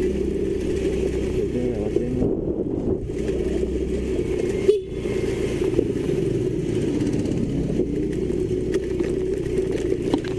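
Motorcycle engine running steadily while riding at low speed, its pitch wavering slightly, with a brief dip about five seconds in.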